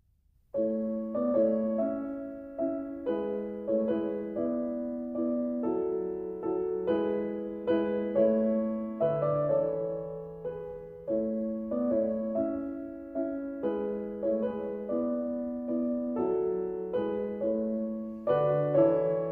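Background piano music: a gentle melody of struck notes, each fading away, beginning about half a second in.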